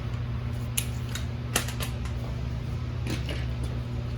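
A handful of short, sharp clicks and knocks, irregularly spaced, from hands and tools working on a car wheel, over a steady low hum.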